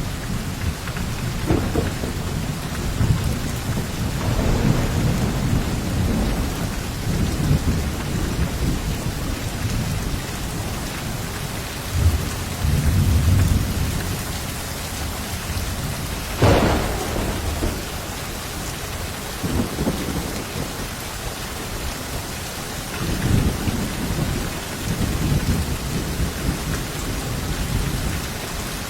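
Steady heavy rain with rolling thunder rumbling at intervals, and one sharper thunderclap about two thirds of the way through.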